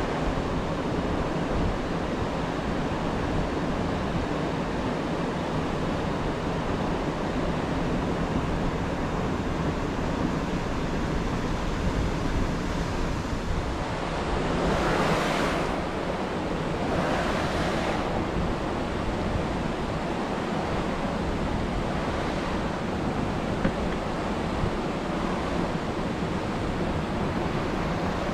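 Steady rushing of creek water over a shallow riffle, mixed with wind rumbling on the microphone. About halfway through, two brief louder rushes come a couple of seconds apart.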